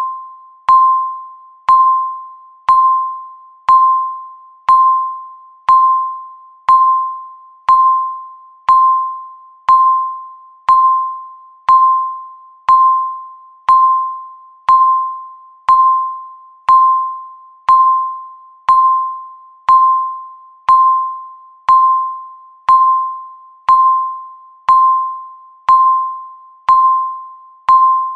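Countdown timer beep sounding once every second: a single clear electronic tone that starts sharply and fades away before the next one.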